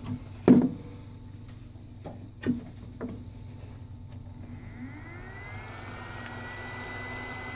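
A few sharp knocks, the loudest about half a second in, then a heat gun switched on about five seconds in: its fan motor whine rises in pitch and settles into a steady tone over a rush of air.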